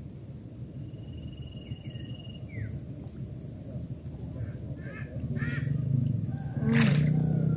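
Wild animal calls around a pond, a few short cries in quick succession about five seconds in, over a low rumble that swells into a steady low hum. Just before the end, a single sharp swish as a fishing rod is cast.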